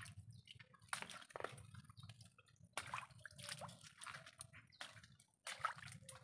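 Shallow water sloshing and dripping in small, irregular splashes, several over a few seconds, from people moving through it.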